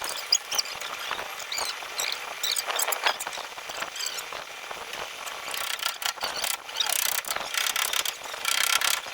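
Hand tools working on metal car parts: quick runs of ratchet-like metallic clicking with short squeaks, densest in the second half.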